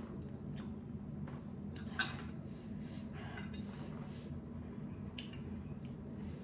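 Metal fork and spoon clinking against each other and tapping the plate as noodles are twirled: scattered light clicks, with a sharper clink about two seconds in.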